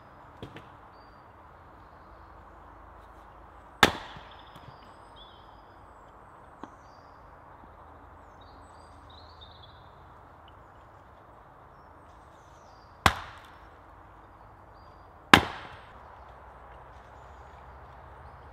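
Log-splitting axe striking firewood on a chopping block: three sharp chops, one about four seconds in and two close together near the end, the last the loudest.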